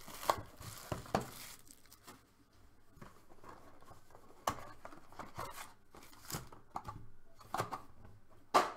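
Crinkling and tearing of trading-card pack wrappers and box cellophane being handled and opened, in scattered short rustles with a few sharp rips, the loudest just before the end.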